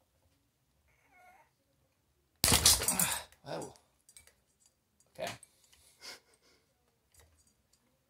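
Vinyl electrical tape being pulled off the roll and wrapped around twisted wire splices. A loud, noisy pull of under a second comes about two and a half seconds in, then a few shorter, quieter pulls and clicks.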